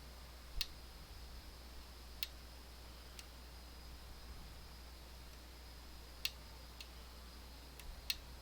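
Small, sharp metallic clicks from lock picks working the pins of a DOM ix TwinStar dimple lock: about seven irregular clicks, three of them louder.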